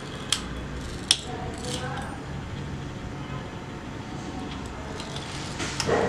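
Two sharp clicks about a second in, from the metal fluted pastry wheel knocking against the board while cutting dough, over a steady low hum.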